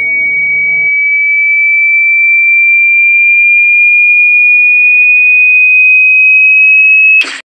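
A loud, steady, high-pitched electronic sine tone, rising slowly in pitch. It cuts off abruptly near the end with a short burst of noise. Faint background music underneath fades out about a second in.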